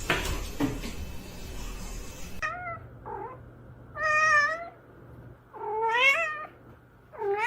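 A cat meowing repeatedly: after a couple of seconds of muffled noise come about four drawn-out meows, one of them rising in pitch.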